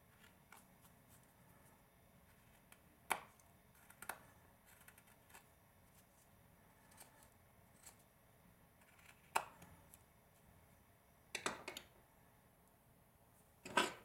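Small carving blade cutting into a hand-held block of wood: a few sharp, crisp cuts spaced seconds apart, with faint ticks between, and a louder click near the end.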